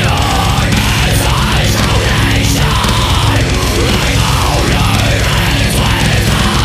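Heavy metal music with distorted guitars and drums at a steady, loud level, with what sounds like a shouted vocal.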